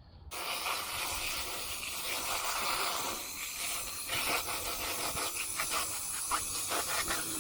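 Garden hose spraying water, switched on abruptly just after the start and hissing steadily with irregular spattering, rinsing out a gutted trout.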